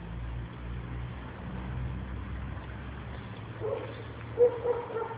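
A vehicle engine running with a steady low hum. Near the end a dog gives several short yelps, the loudest about four and a half seconds in.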